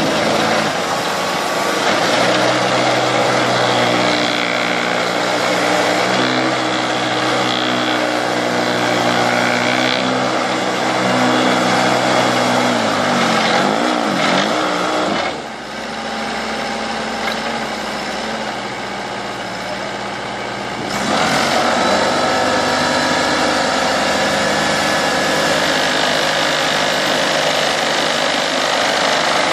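Engine of a small tracked Holmac tree-digging machine running under working load. Its note wavers and the level drops about halfway through, then picks up again about two-thirds of the way in.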